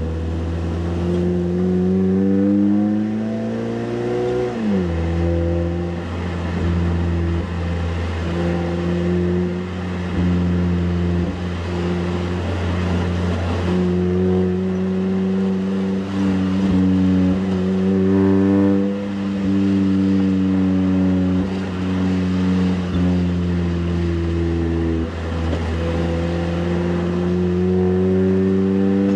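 Toyota Camry 2.5-litre four-cylinder engine running through a Magnaflow Street Series cat-back exhaust while driving. It climbs in pitch under acceleration, drops sharply at an upshift about four and a half seconds in, then cruises at a mostly steady pitch.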